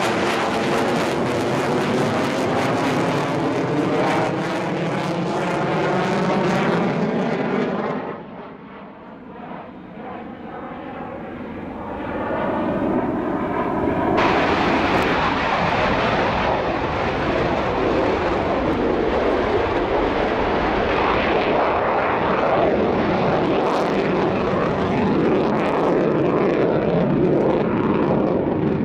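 Mitsubishi F-15J fighter's twin turbofan jet engines running loud during display manoeuvres, the pitch sweeping as the jet passes. The noise fades for a few seconds about eight seconds in, then builds again and stays loud.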